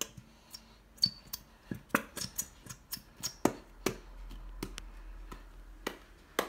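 Plastic Elmer's glitter glue squeeze bottle being squeezed and wrung out to empty it, giving irregular sharp clicks and snaps, about two or three a second.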